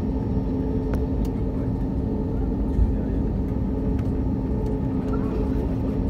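Cabin noise of an Airbus A320 taxiing: a steady low rumble with a constant engine hum at idle.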